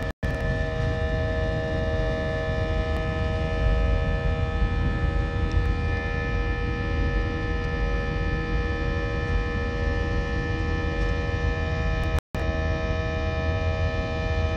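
Airbus A319 jet engines heard from inside the passenger cabin at takeoff power during liftoff and climb: a loud, steady low rumble with several steady whining tones over it. The sound cuts out for a split second twice, just after the start and about 12 seconds in.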